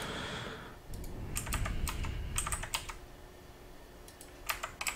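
Computer keyboard and mouse clicking in a few short clusters: about a second in, near the middle, and just before the end.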